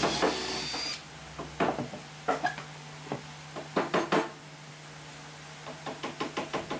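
Workshop handling sounds of woodworking: a short burst of power-tool noise that cuts off about a second in, then scattered knocks and clicks of wooden pieces and tools being set down and handled, with a quick run of light taps near the end.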